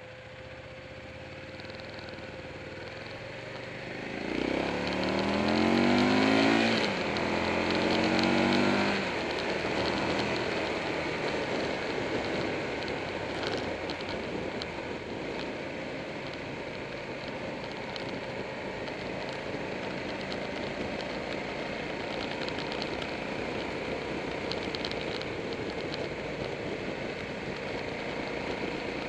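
Buell 1125R's V-twin engine accelerating hard from about four seconds in: its pitch climbs, drops at a gear change and climbs again. It then settles into steady wind and road noise at cruising speed, with the engine low underneath.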